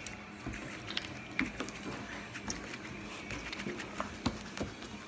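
Slime being squeezed and worked by hand, giving soft squishes with scattered small clicks and pops.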